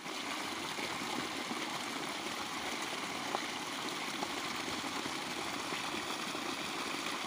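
Irrigation water pouring in a steady stream over a grassy bank and splashing into a muddy puddle below.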